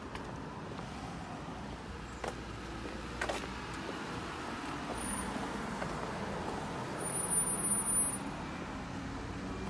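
Road traffic: a car driving by on the nearby street, its sound building through the middle and loudest about three-quarters of the way in, over a steady low hum of street noise.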